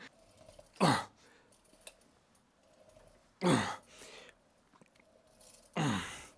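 A man's forceful exhalations, each with a short falling groan, three times about two and a half seconds apart: effort breaths on the working reps of a cable triceps exercise.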